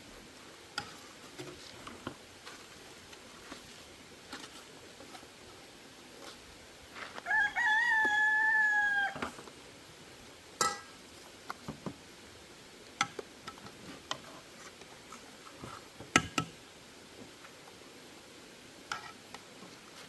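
A rooster crowing once, one call of about two seconds with a slight fall in pitch at the end, in among scattered light knocks and clicks.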